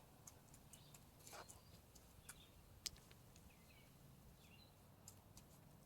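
Near silence: a few faint scattered clicks, one a little sharper just before the middle, and faint bird chirps.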